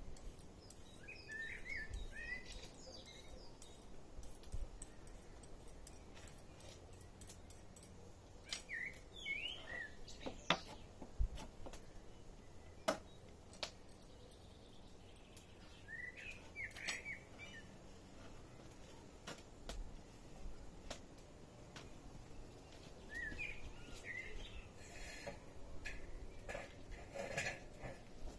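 A small songbird singing four short chirping phrases several seconds apart. Between them come scattered sharp knife taps on a wooden cutting board as a carrot is sliced; these taps are the loudest sounds.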